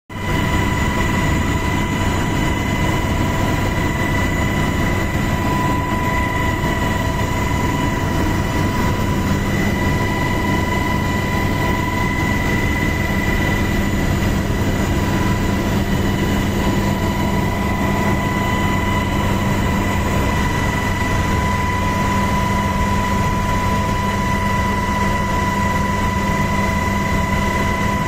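Helicopter turbine and rotor noise heard from inside the cabin: a loud, steady rushing noise with a high whine held on one pitch.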